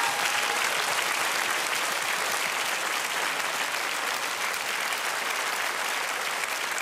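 Studio audience applauding: dense, steady clapping that slowly dies down.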